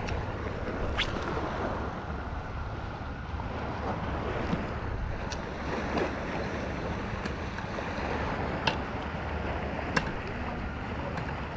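Steady wind on the microphone over sea water lapping at the shore, with about five short sharp clicks scattered through.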